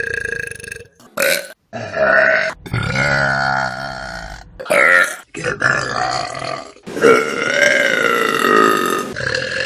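A quick run of loud human burps from different people, about seven in a row with short breaks between them. The longest lasts about two seconds.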